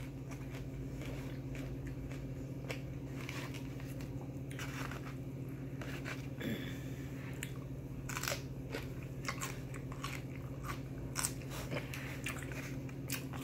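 Close-up chewing and crunching of a raw celery stick, sharp crunches coming in scattered clusters that grow denser in the second half, over a steady low hum.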